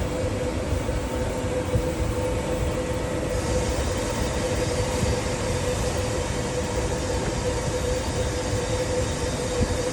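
TH-850NC twin-head milling machine running, a steady mechanical drone with a strong even hum and low rumble; a higher hiss joins about three and a half seconds in.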